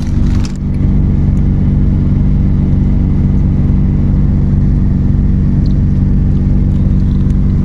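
Car engine idling steadily, a low even hum heard from inside the car's cabin.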